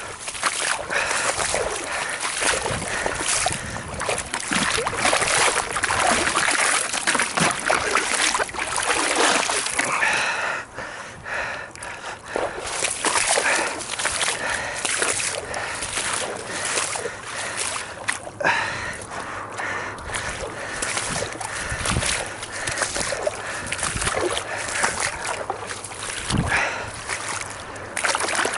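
Water splashing and sloshing irregularly as freshly gutted perch are rinsed by hand.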